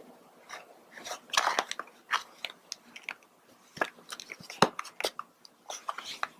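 Irregular small clicks and short crinkling rustles from handling a miniature plastic toy fridge and its packaging; the sharpest click comes about two thirds of the way through.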